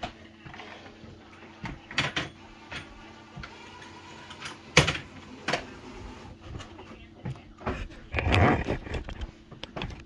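Scattered knocks and clatters of objects being handled, with a denser, louder scraping clatter about eight seconds in; a faint steady hum runs underneath.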